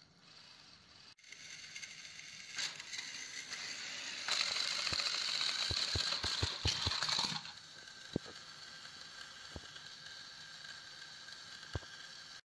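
Small electric motors of battery-powered Plarail toy trains whirring with gear noise as the engines run along plastic track, with a quick run of clicks and knocks as they go off the end of the track. Later the whir drops to a quieter steady whir with a few single clicks, the motors still running as the engines lie overturned.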